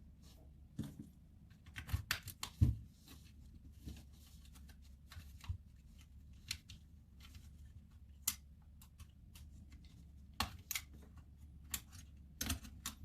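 Irregular small clicks and taps of hand tools and fingers on the plastic body of a Canon PowerShot SX730 compact camera being taken apart, with a quick cluster of clicks about two seconds in and more near the end.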